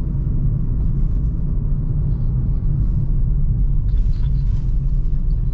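Steady low rumble of road and engine noise inside a Suzuki Ertiga's cabin while it drives along.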